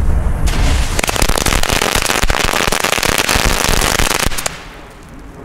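Rubro Thunderstring 500, a 500-shot black-powder firecracker string, going off in a very fast, dense run of bangs for about three and a half seconds, then stopping suddenly.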